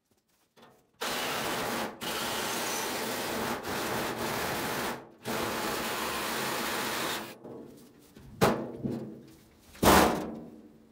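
Cordless reciprocating saw cutting through a dryer's sheet-steel cabinet in three runs of a few seconds each, with short pauses between. Two sharp metal knocks follow near the end, the second the loudest.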